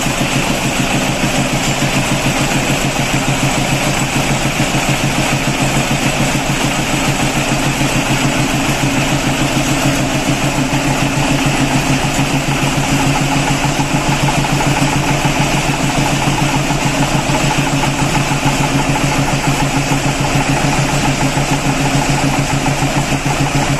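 Vintage Dutch diesel engine running steadily at idle, with an even, rapid firing beat that stays the same throughout.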